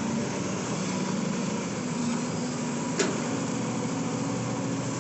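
CAT 320 excavator's four-cylinder turbocharged diesel running steadily under load while the machine digs wet mud. There is a single sharp click about three seconds in.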